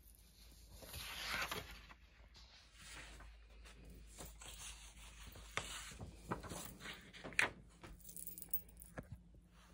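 Faint paper handling: sheets of patterned paper rustling and sliding against a flattened cardboard box. There is a rough swish about a second in and scattered light taps and clicks, the sharpest about seven and a half seconds in.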